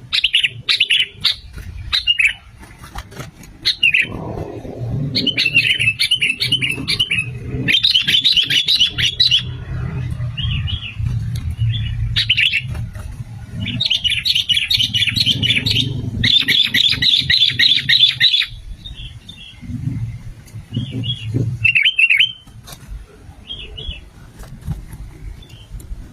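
Sooty-headed bulbul (kutilang) calling: bursts of quick, chattering chirps, a second or two long, repeated again and again with short pauses between, over a low rumbling background.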